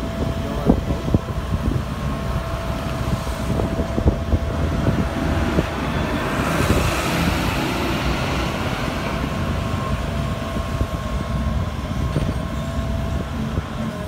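A wheeled excavator's diesel engine runs steadily with a thin whine, and there are scattered knocks and clanks from the bucket working the fill in the trench. About halfway through, a farm tractor passes close by, a swelling rush of engine and tyre noise that then fades.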